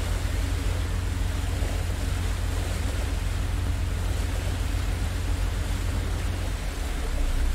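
Steady rushing noise with a strong deep rumble underneath.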